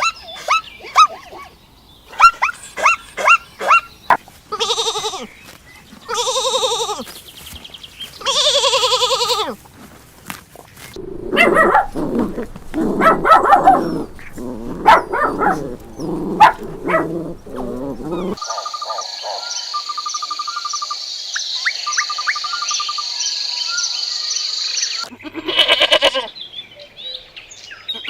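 A sequence of different animal calls, one kind after another. First come quick repeated calls, then three long wavering calls, then a run of lower calls. After that comes a steady high buzz with short pulsing chirps, and a short call near the end.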